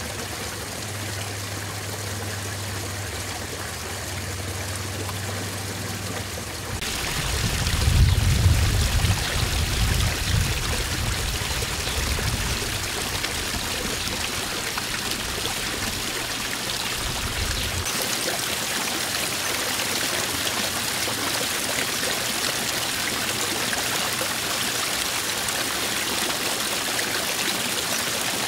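Garden pond water feature running, a steady trickling and splashing of water. About seven seconds in, the water sound turns brighter and louder, with a low rumble for a few seconds before it settles.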